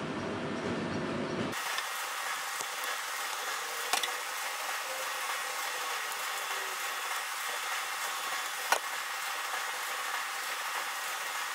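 A low rumble cuts off suddenly about a second and a half in, leaving a steady hiss. Over it come two sharp clicks, about four and nine seconds in, from a screwdriver and metal parts as the screw on the fuser unit's lamp-terminal bracket is driven in.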